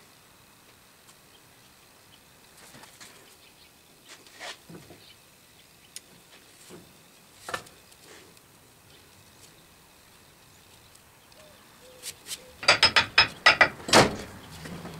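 Metal sand-casting flask being handled: a few faint taps and scrapes in the sand, then near the end a quick run of about eight loud sharp metallic knocks and clicks as the flask is gripped, just before the cope is lifted off.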